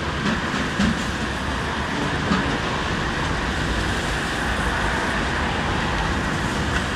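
Steady hiss of falling rain, with a few faint clicks.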